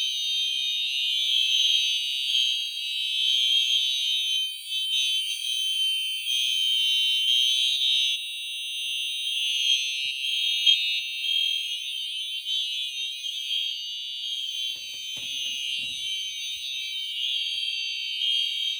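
A fire alarm system in alarm: several fire alarm horns and horn-strobes sounding together in a loud, high-pitched, pulsing blare, some set to continuous and some to temporal code 3.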